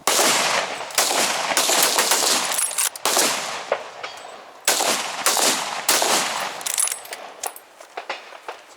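Rapid, overlapping string of centrefire rifle shots from several rifles on a firing line, each crack followed by a ringing echo, arriving irregularly a half second to a second apart.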